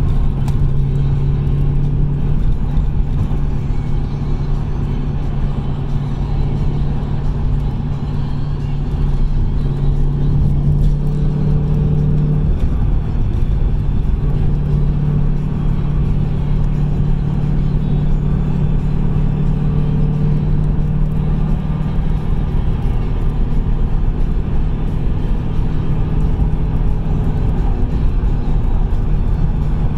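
Ford Mustang cruising at a steady speed: a constant engine hum and low road rumble that never rises or falls.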